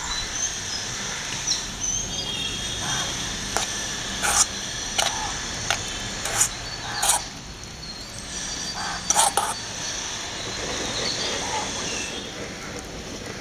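A hand squishing and mixing soft idli cubes with mutton gravy in a bowl, making a string of short wet squelches. Birds chirp faintly in the background.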